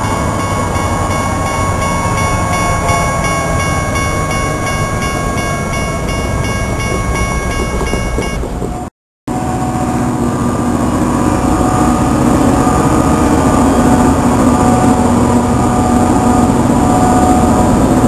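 Two EMD diesel road-switcher locomotives, a GP39-2 and a GP38-2, passing through a road grade crossing with their diesel engines running, over steady ringing from the crossing bells. The sound breaks off briefly about nine seconds in, then picks up louder and closer, with the GP38-2's engine drone heard up close as it passes.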